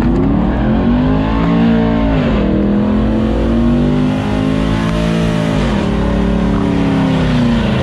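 Muscle car engine revving hard during a burnout, revs held high and dipping briefly twice before climbing again.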